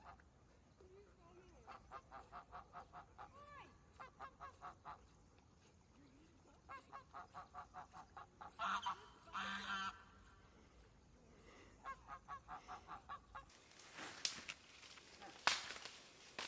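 A bird, goose-like, calling in runs of rapid honks, about five or six a second, with two louder, longer honks in the middle. Near the end the sound cuts to a different background with two sharp knocks.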